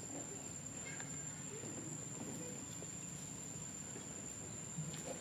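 Steady high-pitched insect drone, crickets or similar, with faint rustles and a few soft clicks.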